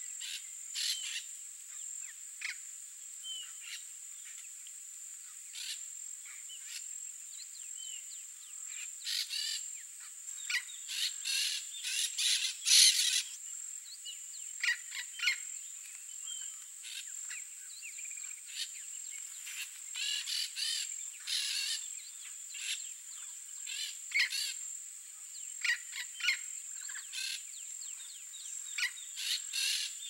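Countryside dusk chorus: many birds chirping and calling in short, repeated bursts, the loudest a little before halfway, over a steady high-pitched insect drone.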